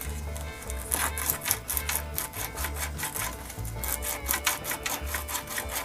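Sandpaper rubbing a small metal pin by hand in quick back-and-forth scraping strokes, several a second, to take it down so a part will slide onto it. Background music with a steady low beat runs underneath.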